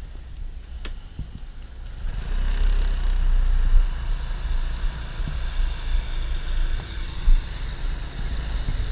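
Vehicle engine running with a steady low rumble, getting louder about two seconds in.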